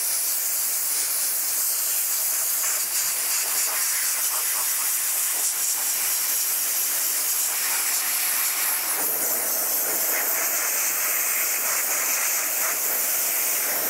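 Dry ice blasting gun with a narrow precision wand firing a steady hissing jet of compressed air and dry ice onto an alloy wheel's hub face, cleaning grime out of its cracks.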